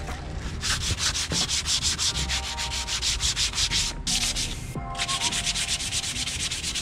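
Sandpaper rubbed by hand over old painted wooden dinghy floorboards in quick, even back-and-forth strokes, several a second, with a short pause about four seconds in. The boards are being sanded back ready for new paint.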